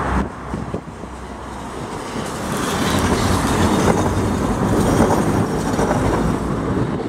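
A two-car Tatra T3SU tram set passing directly beneath, its wheels running on the rails. It grows louder from about a second in to a peak around four to five seconds.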